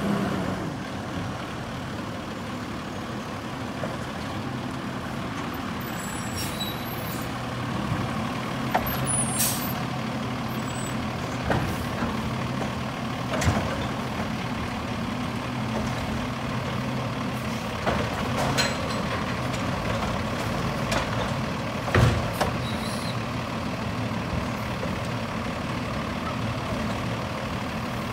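Autocar garbage truck's engine running steadily as the truck pulls up and idles, with several short sharp hisses and clunks from its air brakes.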